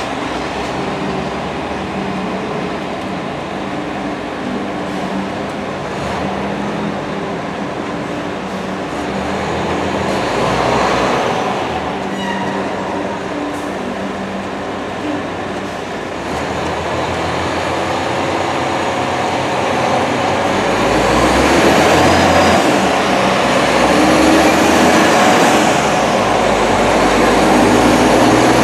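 Diesel engine of a five-axle Liebherr LTM 1220-5.2 mobile crane running as the crane drives up close, growing louder through the second half.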